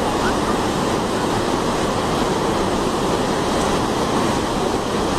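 Waterfall in heavy flow: a steady, loud rush of falling water.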